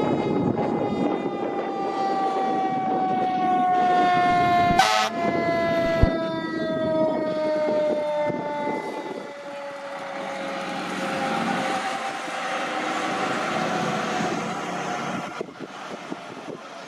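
Train horn held in one long continuous blast, its tones slowly falling in pitch, over the noise of the passing train. A sharp click comes about five seconds in.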